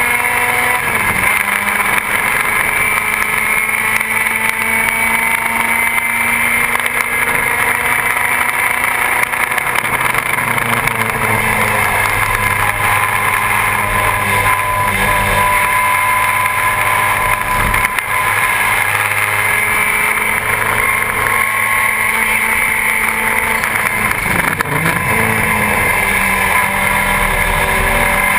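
BMW 2002 race car's four-cylinder engine running hard at high revs, heard from inside the cabin. Its pitch climbs steadily and drops sharply a few times before climbing again.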